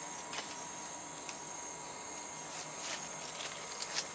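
Steady high-pitched chorus of forest insects, with a fainter steady whine lower down and a few scattered faint clicks.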